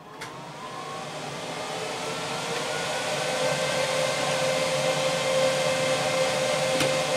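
Fan motor of a K40 CO2 laser cutter spinning up after power-on: a whirring hum that rises in pitch and loudness over the first few seconds, then runs steady. A single click near the end.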